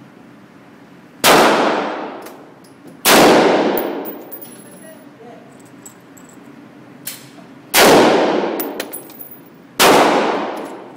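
Four shots from a Smith & Wesson M&P15 AR-15 rifle, irregularly spaced, each followed by a long echoing decay.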